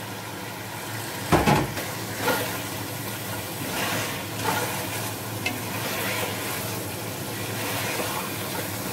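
Chicken drumsticks sizzling in hot oil and masala in a non-stick pot while a wooden spatula stirs and turns them, scraping against the pot; this is the frying (bhuna) stage of the curry base for biryani. A louder knock comes about a second and a half in.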